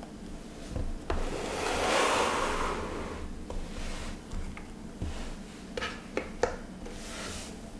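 Hands handling objects on a tabletop: a rustling scrape that swells and fades over about two seconds, then a few light clicks and taps.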